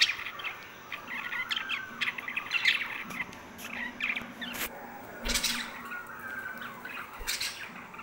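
Pet budgerigars chirping and squawking, a busy, irregular run of short chirps and harsher calls.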